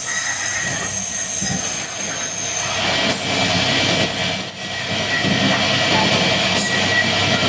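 Loud, steady machinery noise with a thin high-pitched squeal over it. The sound changes abruptly about three seconds in and again just after the end.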